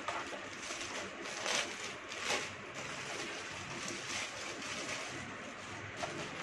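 Soft rustles and light clicks, a handful of them, over a steady background hiss: a jewellery set and its packaging being handled.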